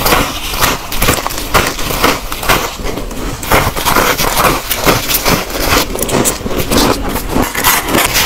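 Close-miked chewing of a mouthful of freezer frost: dense, irregular crunching with no pause. Near the end comes a metal scoop scraping frost off the freezer wall.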